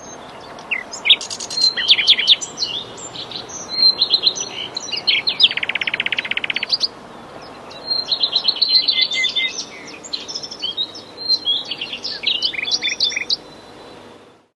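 Several songbirds chirping and trilling over a faint steady hiss, with a fast, evenly pulsed trill about halfway through.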